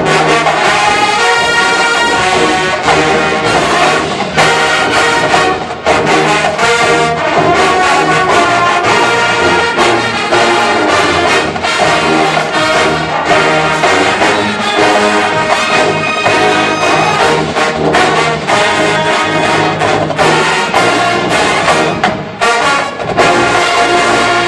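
Marching band playing a number from a spy-themed show, with trombones and trumpets carrying the music.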